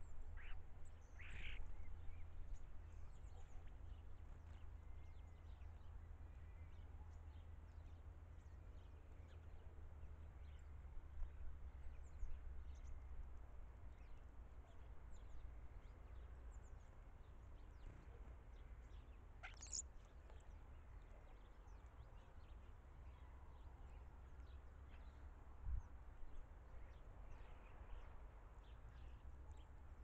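Faint outdoor ambience with a steady low rumble and scattered short bird calls; a sharper call comes a second or so in, and the loudest, a quick high sweep, about twenty seconds in.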